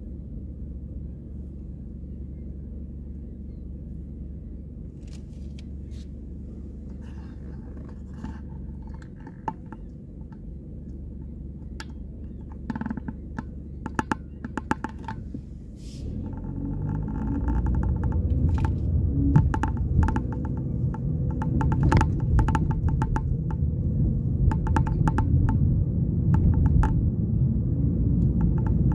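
Car cabin sound: the engine idles with a low steady rumble, then the car pulls away about halfway through and the engine and road rumble grow louder. Scattered clicks and small rattles run throughout.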